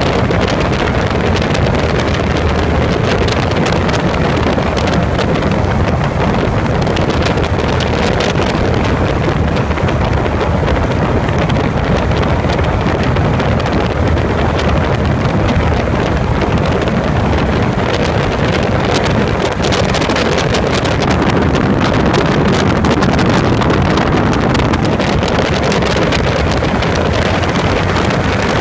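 Steady rush of wind buffeting the microphone, mixed with the drone of the engine, in the open cockpit of a light aircraft in flight.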